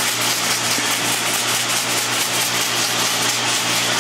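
A machine running steadily: a low hum under a constant hiss.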